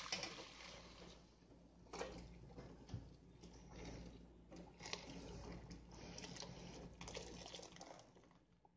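Chicken stock being poured from a pot through a fine stainless-steel mesh strainer into a stockpot: a steady, faint splashing pour with a few sharper knocks, trailing off near the end.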